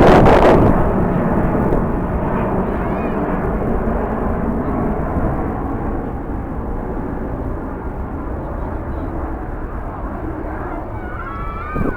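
Jet airliner's engine noise, loudest at the start and slowly fading as the aircraft moves away, with faint voices near the end.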